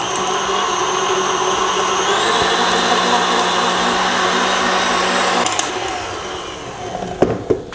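Electric tilt-head stand mixer with a wire whisk beating soft butter in a glass bowl to make it light and fluffy: a steady motor whine that steps up in pitch about two seconds in as the speed rises, then is switched off and winds down, followed by a couple of clicks near the end.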